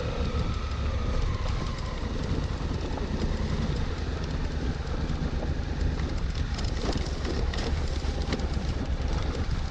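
Honda Africa Twin motorcycle running steadily under way, its engine rumble mixed with wind and road noise. A few sharp ticks come between about seven and eight and a half seconds in.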